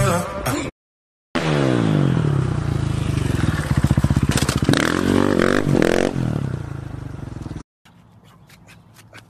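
Motorcycle engine revving, its pitch sliding down and then climbing again, with a scraping clatter partway through, before it cuts off abruptly. Just before it, the end of a pop song and a moment of silence.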